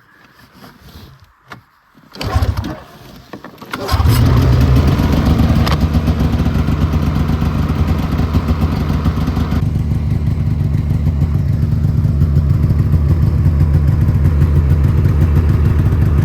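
A vehicle engine starting: a brief first burst, then it catches about four seconds in and runs steadily and loudly.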